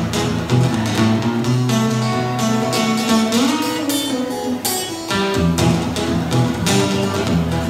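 Solo acoustic guitar playing an instrumental break between sung verses: strummed chords, with one note bent upward about halfway through.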